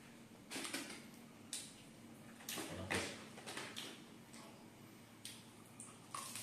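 Close-up eating sounds of a person biting and chewing fried chicken: a string of short, sharp mouth clicks and smacks at irregular intervals, the loudest about three seconds in.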